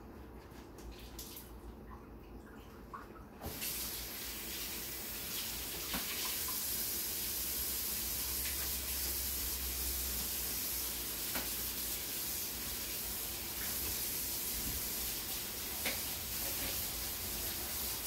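Kitchen tap running into a sink, stepping up about three and a half seconds in to a steady hiss of water, with a few light knocks, as the cabbage is rinsed under it.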